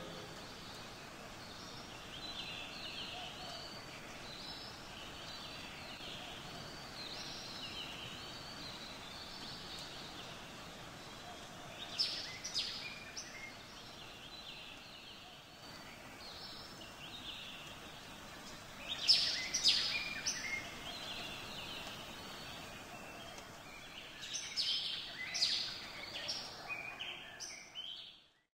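Birdsong ambience: a faint steady outdoor hiss with scattered high bird chirps and calls. The calls get louder about twelve seconds in, again around nineteen to twenty seconds and near the end, then the sound cuts off suddenly.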